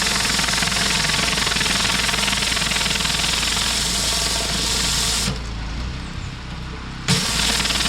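Pressure washer running, its high-pressure spray hissing steadily on concrete over the machine's low hum. About five seconds in the spray drops out for nearly two seconds, then comes back abruptly.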